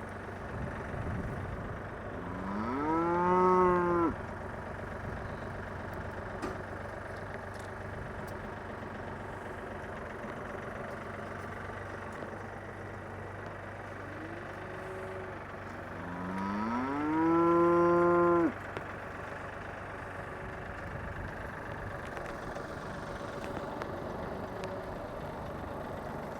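Cattle mooing: two long, loud calls that rise in pitch and then hold, a couple of seconds in and again about two-thirds through, with a shorter call just before the second, over a steady low hum.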